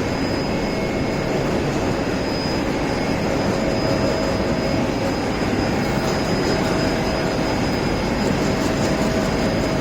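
UV coating and curing line running: a steady machinery drone with a faint, constant high-pitched whine, as the primed particle board is put through UV curing.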